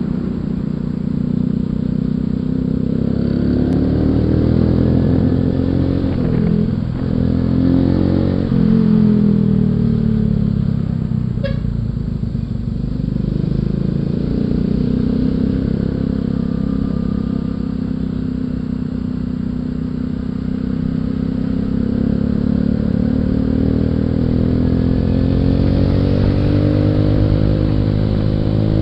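Suzuki Shogun 125's single-cylinder four-stroke engine running under way in traffic. Its pitch dips and climbs again about seven seconds in, and rises steadily near the end as it accelerates.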